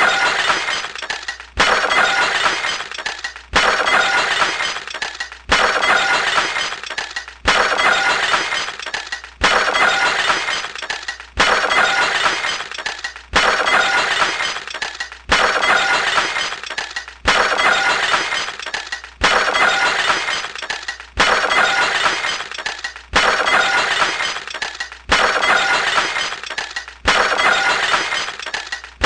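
Wine glass shattering, the same break repeated about every two seconds: each a sudden crash that fades out over the next couple of seconds.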